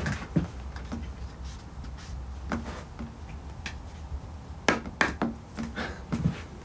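Objects being handled and moved about: scattered knocks, rubs and light clinks, with two sharper knocks about five seconds in, over a low steady hum.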